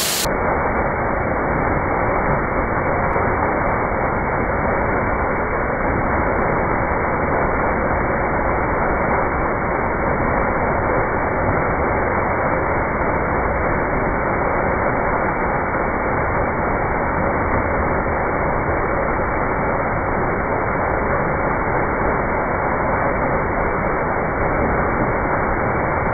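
Rotating seasoning drum turning with a load of crackers tumbling through it and pouring out, played back in slow motion. It comes through as a steady, dull rushing noise with no separate clatters.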